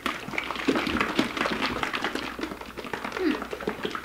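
Pancake batter sloshing and rattling inside plastic squeeze bottles as several are shaken hard at once, mixing food colouring into the batter.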